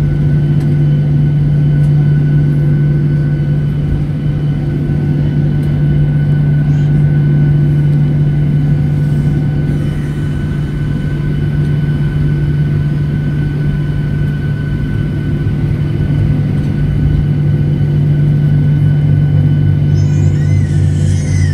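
Cabin noise of a Ryanair Boeing 737 taxiing on the ground: the jet engines running with a steady low drone and a few faint, constant whines above it.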